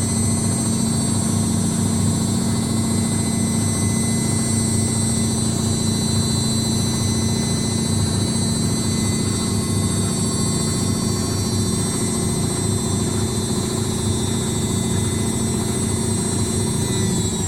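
Indesit WITL 106 top-loading washing machine on its spin cycle: a steady motor and drum whine over a rapid knocking from the drum as it spins, the fault the machine has during spin. Right at the end the whine begins to drop in pitch.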